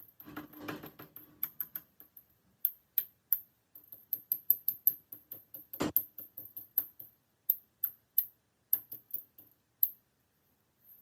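Irregular sharp clicks and light metallic taps from small metal parts being handled and set down, with one louder knock about six seconds in.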